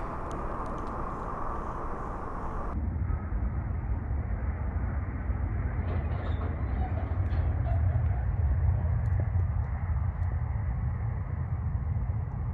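Low engine rumble of a motor vehicle, starting about three seconds in and swelling to its loudest a few seconds later.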